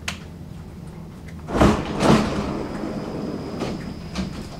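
Stockholm metro train running, heard from inside the car: a steady low rumble, then two heavy thumps about half a second apart as the wheels pass over rail joints or points. A steady high whine sets in after them.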